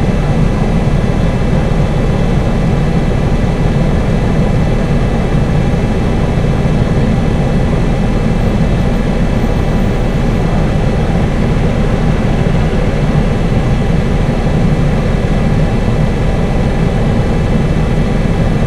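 A loud, steady low rumble that does not change at all, with no separate passing vehicles or events standing out.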